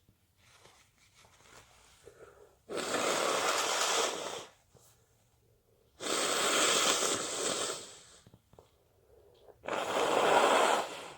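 A person sneezing three times, a few seconds apart. Each is a loud noisy blast lasting over a second.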